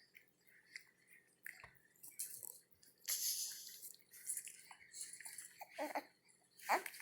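A few small, short sneezes with sniffly breaths and little wet mouth clicks between them. There is a hissy burst about three seconds in and the sharpest, loudest one near the end.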